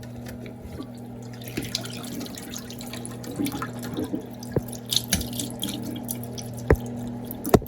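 Water dripping and draining from boiled okra in a kitchen-sink strainer, with a few sharp clicks and knocks, over a steady low hum.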